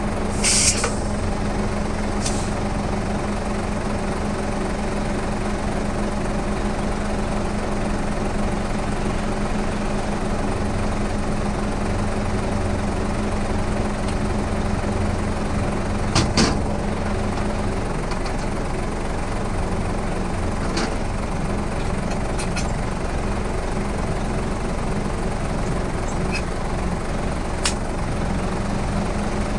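A heavy vehicle's engine idling steadily, with a few sharp clicks and knocks over it, the loudest just after the start and about 16 seconds in.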